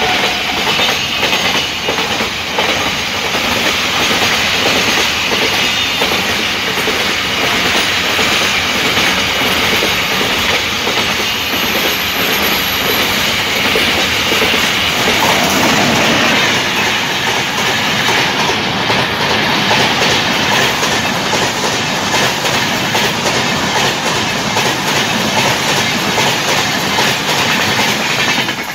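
Container freight train hauled by twin WCAM-3 electric locomotives passing close at speed: a loud, steady rumble of wheels on rail with a dense clatter over the rail joints. Near the end a passenger train passes on the adjacent track.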